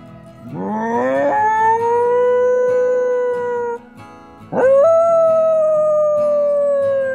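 Havanese puppy howling: two long howls. The first slides steeply up in pitch and is held steady for about three seconds; the second starts about four and a half seconds in, rises quickly and then sinks slowly.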